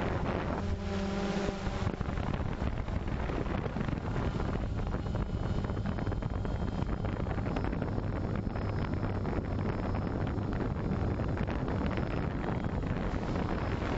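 Quadcopter drone's propellers and motors whirring steadily, with a low hum under it and wind rushing across the on-board microphone.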